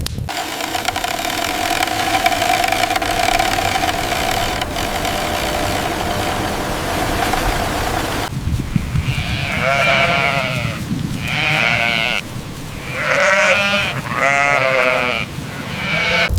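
Sheep bleating: several separate calls, some with a wavering pitch, follow one another in the second half. They are preceded by a steady hissing noise with a faint hum.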